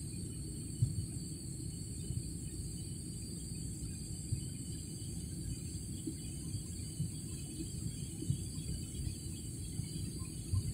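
Steady airliner cabin noise: a dense low rumble with a thin, steady high whine above it, and a few light knocks.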